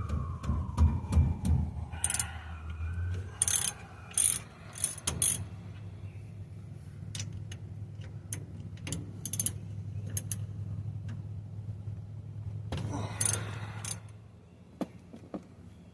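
Mechanic's tools working the differential bearing-cap bolts on a truck rear axle: scattered ratchet clicks and metal clinks, with several short, loud rasping bursts. A steady low hum runs underneath and stops about 14 seconds in.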